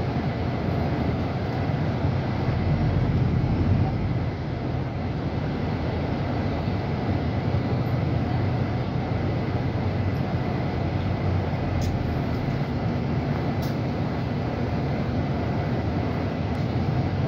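Inside a VDL Berkhof Ambassador 200 city bus under way: steady diesel engine and road noise, heaviest in the low end, with a faint high steady whine. Two light clicks sound about three-quarters of the way through.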